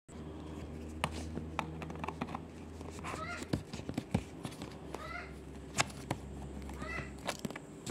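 Phillips screwdriver turning screws out of the plastic end cover of a Brother colour laser toner cartridge: irregular clicks and ticks of the tool and plastic, with three short squeaks about two seconds apart.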